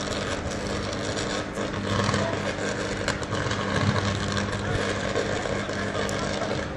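High-voltage electric arc burning among substation switchgear: a steady harsh buzz with a low electrical hum under a rushing crackle.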